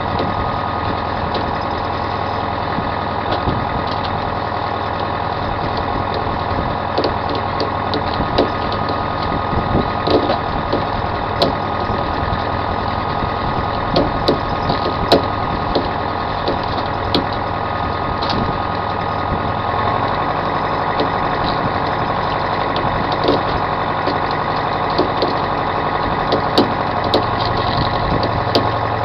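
Fishing boat's engine running steadily, its low note shifting slightly about two-thirds of the way through, with scattered sharp clicks and knocks over it.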